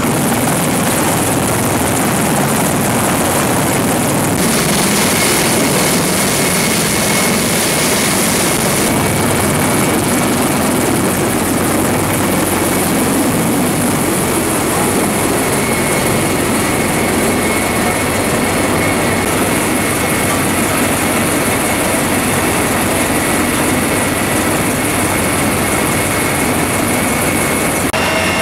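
CH-53E Super Stallion helicopter running at close range: loud, steady rotor and turboshaft engine noise, with a thin high whine entering about four seconds in and holding. Its rotor downwash is blowing up dust around the aircraft.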